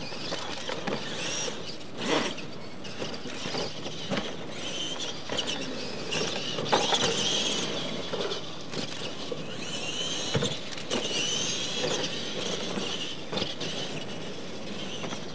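Electric RC monster trucks racing on a dirt track: motors whining up and down with the throttle over tyres scrabbling on dirt, with a few sharp thumps as the trucks hit or land off the ramps.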